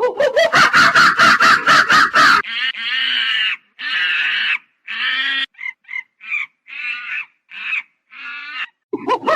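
Monkey calling: a fast, chattering run of sharp calls for about two and a half seconds, then a string of about nine separate, longer pitched calls with short gaps between them.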